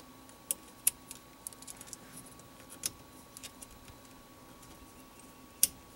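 Plastic fuel injector being worked by hand into its port and the slot of its metal retaining bracket: scattered small clicks and light scrapes, with sharper clicks about half a second in, near one second in and near the end.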